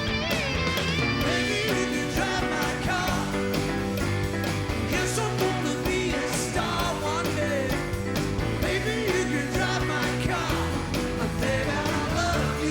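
Live rock band playing, with electric guitars over bass and drums.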